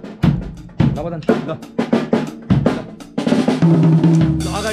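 Acoustic drum kit played with sticks: a run of separate snare, tom and kick hits, then a continuous roll with ringing drums and cymbal wash over the last second and a half.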